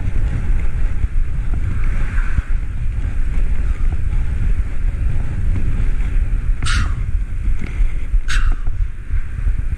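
Wind buffeting the microphone of a camera on a moving bicycle: a loud, steady low rumble. Near the end come two short, sharp, higher sounds about a second and a half apart.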